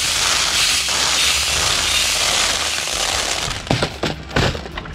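Water beads streaming down a toy cement mixer's plastic chute and pattering onto a plastic kiddie pool and toy trucks, a dense crackling rattle of many small hits. About three and a half seconds in it thins to a few separate clicks and knocks.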